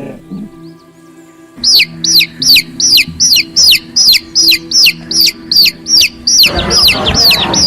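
A chick peeping rapidly, a steady run of short high falling peeps about three a second that starts about a second and a half in, with a lower, rougher sound joining near the end.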